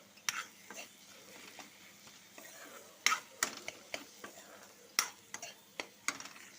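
A spoon stirring and scraping in a pan of frying greens, with irregular clicks and knocks against the metal over a faint sizzle.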